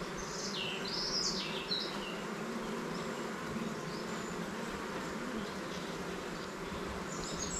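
Steady hum of a honeybee colony in an open nucleus box during a frame-by-frame inspection; the colony is packed with bees and brood, ready to be moved into a full hive. A few short high chirps sound over it in the first two seconds.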